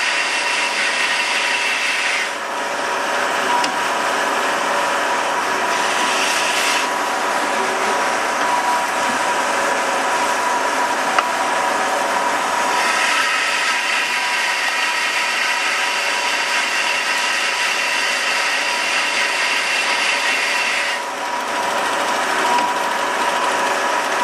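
Amada HA250W hydraulic horizontal band saw running in its automatic cycle, the blade sawing through bar stock with a steady rasping. A higher-pitched part of the sound drops out about two seconds in, comes back around thirteen seconds in, and drops out again near the end.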